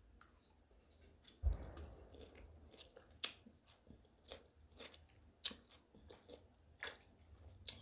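Crunchy salad of lettuce, cucumber and radish chewed close to the microphone, with sharp crunches every second or two. About a second and a half in, a distant low boom with a short rumble, which the eater takes for a deer hunter's gunshot.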